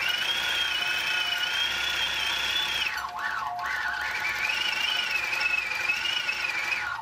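Longarm quilting machine running while stitching, its motor giving a high whine that rises and falls in pitch as it slows and speeds up. About three seconds in it winds down almost to a stop, then picks up again.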